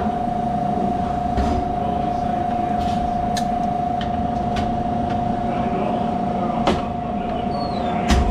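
Refrigeration system running while being charged with refrigerant: a steady hum with a constant mid-pitched whine, and a few faint clicks.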